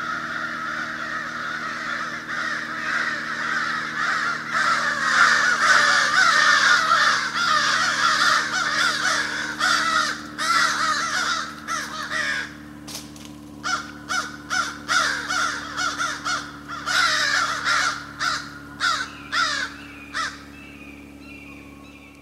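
A flock of crows cawing hard together while mobbing a barn owl perched in a tree overhead. The cawing is a dense, continuous din for about the first half, then breaks up into separate caws that thin out toward the end, over a steady low hum.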